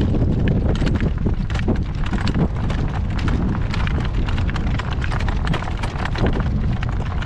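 Hooves of a horse in harness clip-clopping over pasture ground as it pulls a driving cart, many irregular strikes over a steady low rumble.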